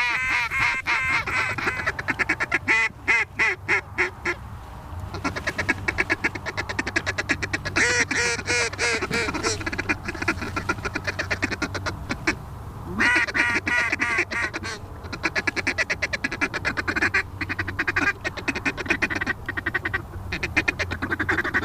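Rapid, repeated honks and clucks blown loud on Canada goose calls, the aggressive calling hunters use to work geese down to the decoys.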